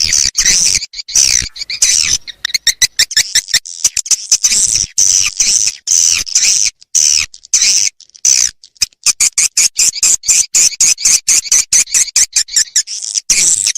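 Recorded swiftlet calls played as a lure sound for a swiftlet house flyway: rapid, high-pitched chirping twitters, many a second, broken by brief gaps.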